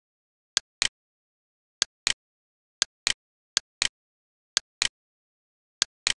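Computer mouse clicks in pairs, each a sharp press then release about a quarter second apart, six pairs about a second apart, with dead silence between.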